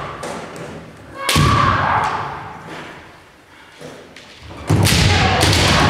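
Kendo sparring: bamboo shinai strikes on armour and stamping footwork on a wooden gym floor, with kiai shouts. It comes in two loud bursts, about a second in and again near the end, each dying away in the hall's reverberation.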